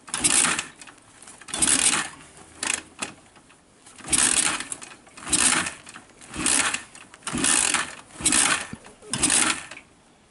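Daelim VT 125 V-twin being cranked by its electric starter in short presses, about one a second, the starter whirring for half a second each time with quiet gaps between. The engine does not catch: first start attempts without choke after long standing, carburettor freshly cleaned.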